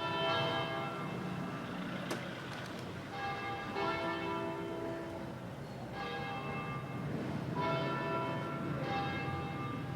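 Church bells ringing in the distance, struck over and over, each stroke a ringing cluster of tones that hangs on into the next. A steady low rumble lies underneath.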